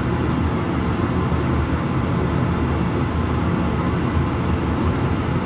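A steady, low mechanical hum, like a kitchen fan or running appliance, holding even throughout.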